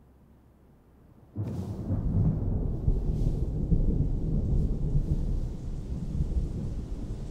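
Near silence for about a second and a half, then a low rumbling noise starts suddenly and keeps going, uneven in level.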